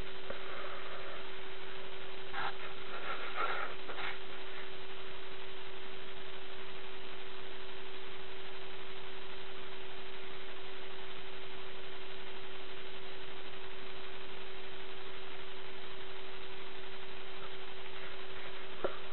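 A steady hum at one constant pitch over an even hiss, with a few faint scratchy sounds in the first few seconds.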